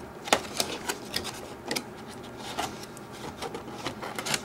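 A cardboard box being opened and handled by hand: scattered light clicks, taps and rustles of the flaps and packaging, the sharpest about a third of a second in.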